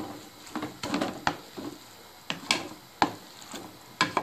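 A spatula stirring cooked leafy greens in a metal pan, knocking and scraping against the pan's side in irregular taps, roughly two or three a second.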